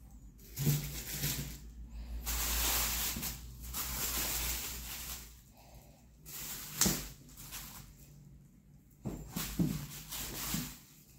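Plastic produce wrap and a non-woven fabric shopping bag rustling as groceries are handled and pulled out, in several uneven bursts with a sharp crinkle about seven seconds in.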